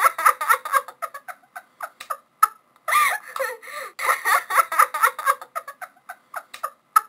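Women giggling and laughing in short, high-pitched bursts, with brief pauses.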